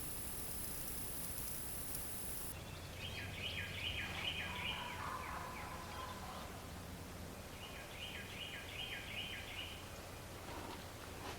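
Wild turkey gobbling twice, each a rapid rattling series of notes lasting a couple of seconds.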